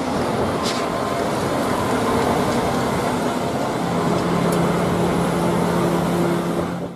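Diesel engine of a MAN concrete mixer truck running as the truck drives slowly and turns, with a steady low drone coming in about four seconds in.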